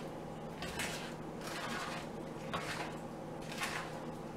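Spatula stirring and scraping a very thick, dough-like cranberry batter in a mixing bowl: four soft scraping strokes, about one a second.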